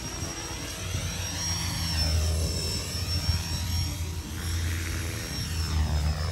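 Align 500-size electric RC helicopter on a 6S battery flying aerobatics. The rotor blades make a steady low thrum under a thin high whine, and the sound sweeps up and down in pitch as the helicopter swoops about.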